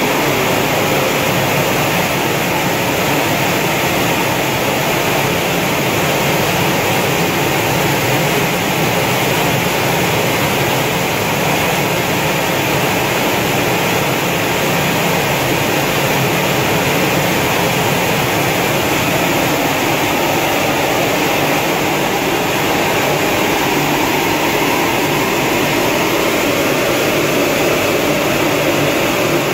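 Grain sorting machine running steadily, with split green gram streaming through its steel outlet chutes: a constant loud machine hiss that does not change.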